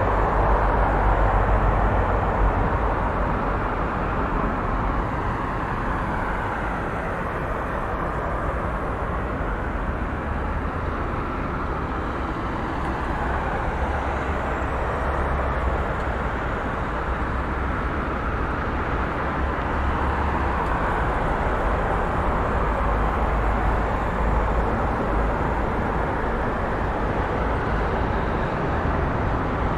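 Busy city road traffic: a steady wash of car and engine noise with tyre rumble, swelling and easing as vehicles pass.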